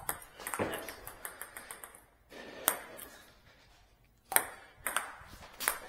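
Table tennis ball clicking off bats and the table: several sharp, unevenly spaced ticks, the loudest a little past two-thirds of the way in.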